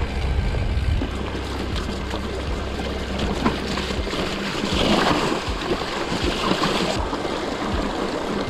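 Mountain bike being ridden along a trail: a steady rush of tyre and wind noise with scattered clicks and rattles from the bike, swelling louder for a moment about five seconds in.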